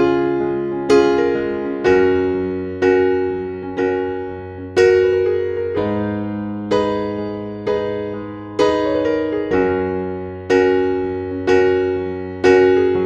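Slow, soft piano music: sustained chords struck about once a second, each note ringing and fading, over a low bass.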